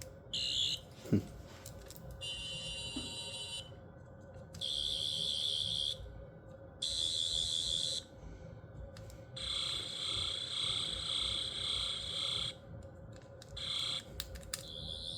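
Chrome Twelfth Doctor sonic screwdriver toy playing its electronic sonic sound effect: a high, warbling buzz in about six bursts of half a second to three seconds each, as its button is pressed again and again. A single knock comes about a second in, and there are a few clicks near the end.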